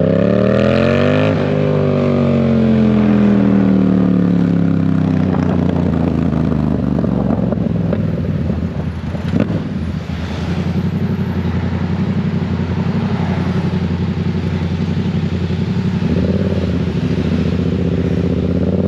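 Yamaha MT-07's parallel-twin engine heard from the rider's seat: it revs up for about a second, then its pitch falls slowly as the throttle is rolled off. It then runs fairly steadily at low revs, rising a little again near the end.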